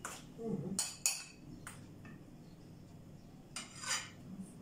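Metal spoon scraping and clinking against a round metal pizza pan while spreading sauce over the dough: two short scrapes, one about a second in and one near the end.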